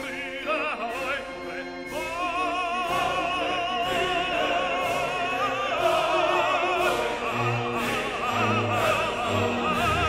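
Background music: a classical, opera-style piece with a singer using wide vibrato over sustained orchestral notes.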